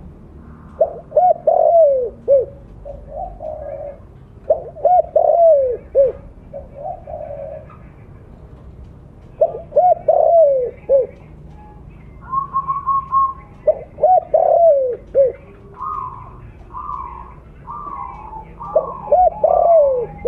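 Spotted dove cooing: a phrase of several falling coo notes, repeated about every four to five seconds, with softer cooing between phrases. From about halfway in, a second, higher-pitched dove coos in reply.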